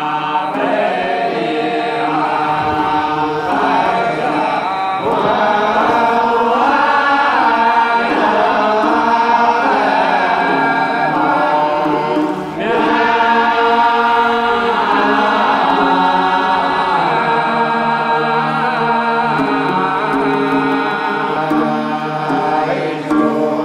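Dong (Kam) grand song: a group of voices singing together in parts, unaccompanied, over a held low note.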